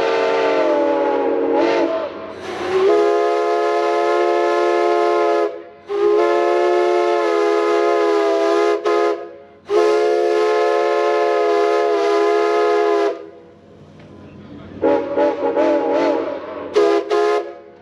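Santa Fe 4-8-4 steam locomotive No. 2926's steam whistle blowing. It opens with a wavering, pitch-bending sound, then gives three long steady blasts of about three seconds each, and ends with a string of short toots whose pitch bends as the whistle valve is worked.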